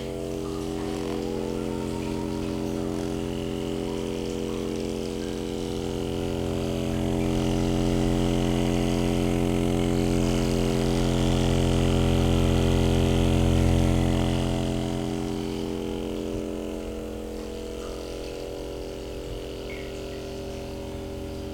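A small motor-driven device switched on and running steadily with a hum, its pitch rising briefly as it spins up about a second in; it grows louder in the middle, then eases back.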